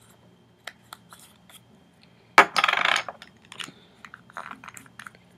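Small hard make-up items clicking and clattering as they are handled and sorted through, with scattered light clicks and one louder clatter lasting about half a second, about two and a half seconds in.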